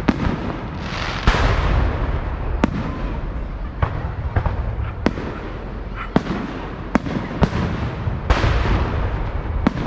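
Fireworks going off: about ten sharp bangs at irregular intervals, two of them bigger booms with a trailing rumble, one about a second in and one near the end.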